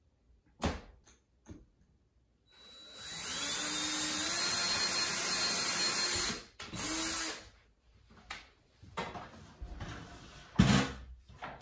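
Cordless drill boring a pilot hole into wooden window trim: one steady run of about three and a half seconds with the motor whine stepping up slightly in pitch, then a short second burst. Scattered knocks and a thump follow near the end as the drill is handled.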